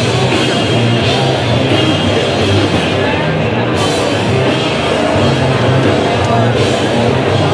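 Loud rock music playing continuously, with a pulsing bass line.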